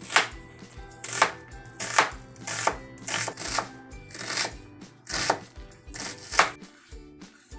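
Chef's knife slicing a white onion on a wooden cutting board: about nine cuts, each ending in a knock of the blade on the board, at an uneven pace of roughly one a second, stopping shortly before the end.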